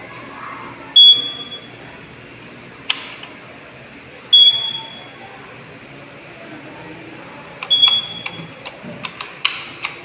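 Fire alarm control panel's trouble buzzer giving short high beeps, three in all, about every three and a half seconds: the panel signalling a zone 1 fault. A few sharp plastic clicks come from the smoke detector head and base being handled.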